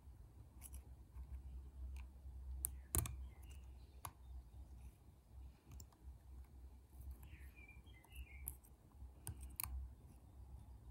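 Faint, scattered clicks and light scraping of a lock pick working the pins of a pin-tumbler lock, with one louder click about three seconds in.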